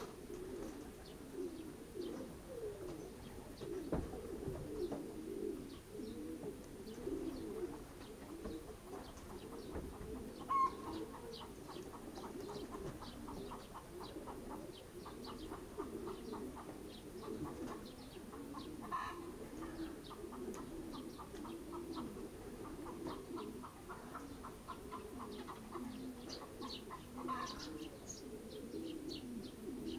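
A flock of racing pigeons cooing continuously in the loft, with a few soft wing flaps. From about a third of the way in, rapid runs of short high chirps sound over the cooing.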